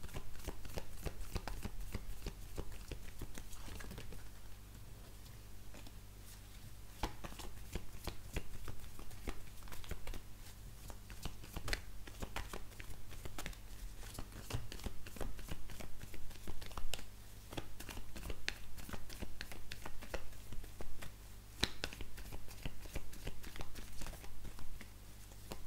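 A deck of oracle cards being shuffled by hand: a steady run of quick papery clicks and rustles, a little quieter a few seconds in. A faint steady low hum lies underneath.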